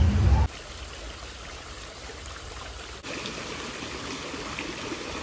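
Water from a stone courtyard fountain spilling into a pool, a steady trickle and splash, a little louder from about three seconds in. Before it, a quieter even hiss. Half a second in, a louder stretch of voices and music cuts off abruptly.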